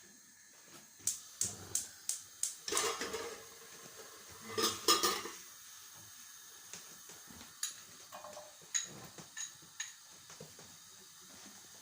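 Kitchen utensils and dishes clattering and clinking against one another and against a pot, in a busy run of knocks that is loudest about four to five seconds in, followed by a few lighter ticks.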